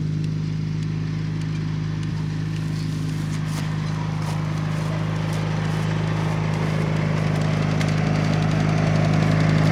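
A vehicle's engine idling: a steady low hum that grows louder toward the end, with faint rustling of steps through grass.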